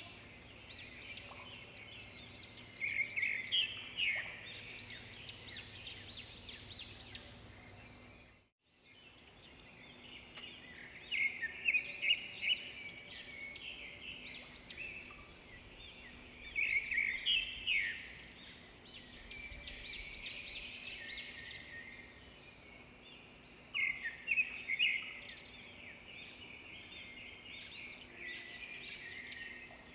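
Many small birds chirping and trilling at once in a dense chorus, with louder bursts of song every few seconds. The sound cuts out completely for a moment about eight seconds in.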